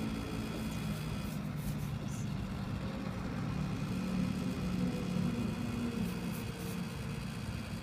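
A steady low hum, like a running appliance, with a few brief faint scratches of a wax crayon rubbing on a coloring-book page, about a second and a half in and again near the end.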